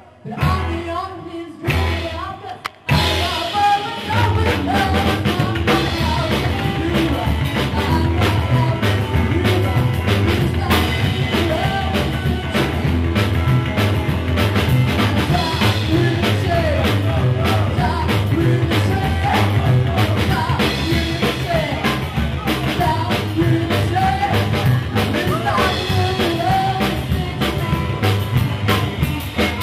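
Live rock-and-roll band: a woman singing over upright bass, drum kit and hollow-body electric guitar. Two short stop-time hits come in the first few seconds, then the full band plays on steadily.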